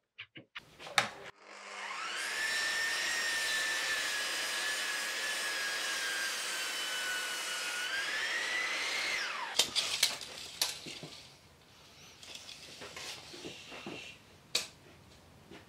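Mitre saw motor spins up and cuts through a thick timber rafter: its pitch sags slowly under load for several seconds, rises briefly as the blade comes through, then the motor stops quickly. A few sharp knocks of the timber being handled follow.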